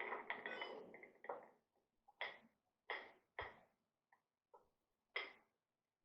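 A drinking glass clinking and knocking on a tabletop: a quick cluster of clinks at first, then single clinks about every half second to second.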